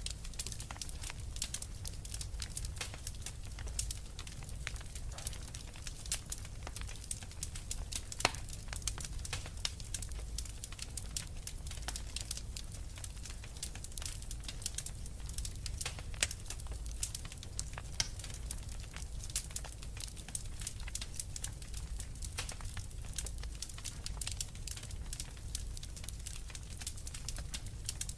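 Wood fire crackling: a dense, irregular run of sharp pops and snaps over a steady low rumble.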